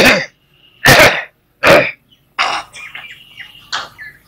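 A man coughing, three loud coughs in quick succession, then two softer coughs and throat clearing. Faint bird chirps sound behind.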